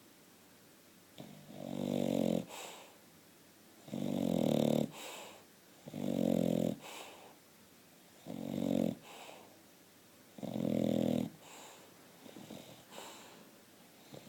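English bulldog snoring in her sleep: five loud, rough, buzzing snores about two seconds apart, each about a second long and followed by a softer breath, then a few fainter breaths near the end.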